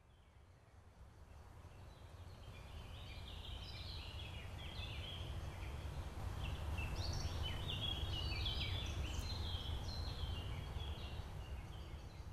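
A faint ambient soundscape: a steady low rumble with many birds chirping in quick, overlapping calls. The whole sound fades in, is loudest around the middle, and fades out near the end.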